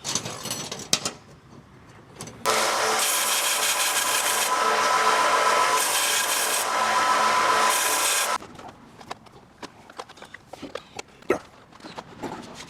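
Belt sander deburring the cut end of a steel threaded rod: it runs for about six seconds, starting a couple of seconds in and cutting off suddenly, and the grinding gets harsher three times as the rod is pressed onto the belt. Light metallic clinks of rods being handled come before and after.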